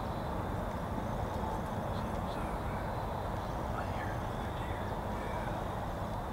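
Steady low rumbling background noise, with a few faint, short bird calls about two and four seconds in.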